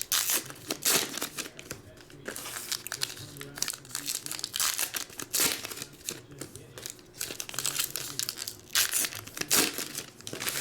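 Foil trading-card pack wrappers crinkling and tearing as 2019 Topps Heritage Minor League baseball packs are ripped open, in irregular crackling bursts.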